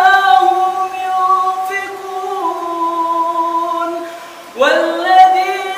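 A man's solo Quran recitation in a melodic chanting style, as an imam leads prayer: long held notes that shift slowly in pitch. The phrase fades out about four seconds in, and a new phrase starts with a rising swell.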